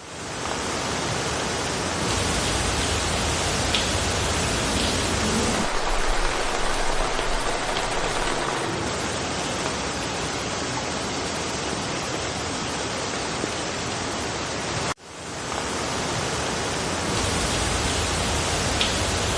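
Steady rain falling through a forest, a dense even hiss. About fifteen seconds in it drops out for an instant and fades straight back in.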